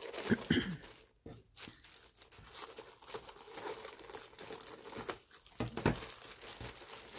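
Clear plastic shrink-wrap crinkling and tearing as it is cut with scissors and pulled off a rolled pad of paper, in uneven crackles with a couple of louder rustles.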